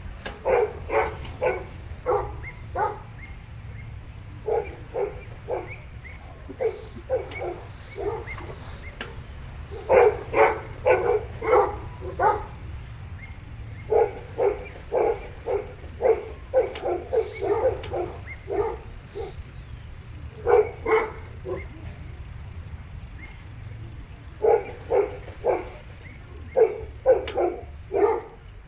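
A dog barking over and over, in runs of several barks with short pauses between, over a low steady rumble.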